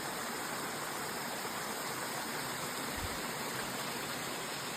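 Creek water rushing steadily, an even wash of flowing-water noise. A soft low bump about three seconds in.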